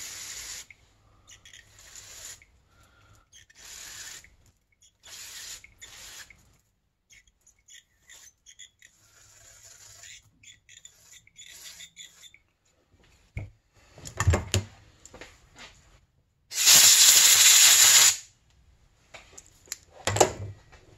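Small parts of a snowmobile power valve being handled on a shop towel, with a few light knocks. Near the end comes a loud spray hiss lasting about a second and a half, the cleaning spray used to get the gunk off the parts.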